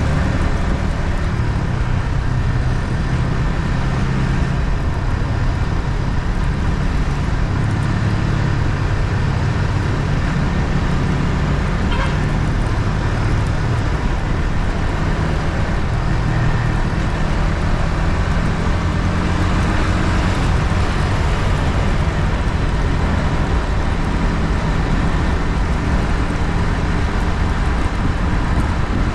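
Yamaha MT-15's 155 cc single-cylinder engine running through its stock exhaust under way, heard from onboard, its note shifting slowly with throttle, over a steady rush of road and wind noise.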